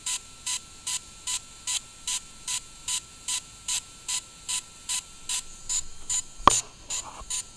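A DJI Phantom 3 Professional drone beeps in a steady, even run of short beeps, about two and a half a second. This is the sound that its firmware update is in progress. A single sharp click comes about six and a half seconds in.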